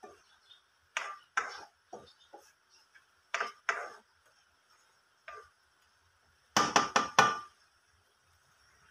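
Plastic spatula stirring squid in a thickened sauce in a non-stick wok, with short scrapes and clacks against the pan. Near the end comes a quick run of four sharper knocks.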